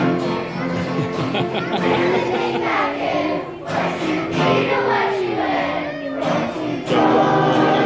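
Children's choir singing a song together, the singing swelling louder near the end.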